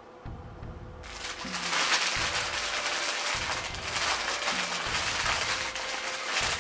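Packaging crinkling and rustling loudly, starting about a second in, over background music with a repeating bass line.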